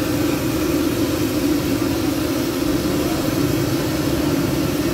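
Chicken deep-frying in a large wok over a gas burner: a steady low drone from the burner under the even hiss of bubbling oil.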